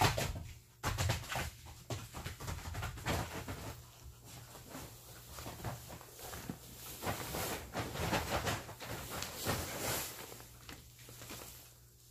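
Dogs moving about on a plastic tarp: crinkling and scuffing of the tarp under their paws and bodies, in many short rustles that thin out near the end.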